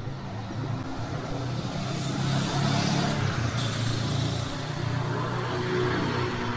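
A road vehicle passing close by in traffic, its engine hum and tyre hiss building to a peak about two to three seconds in, then slowly fading.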